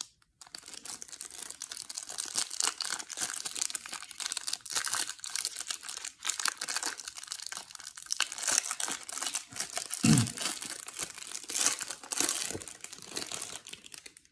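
Clear plastic wrapper of a trading-card hanger pack crinkling and rustling as it is torn open and the cards are pulled out, with a dull thump about ten seconds in.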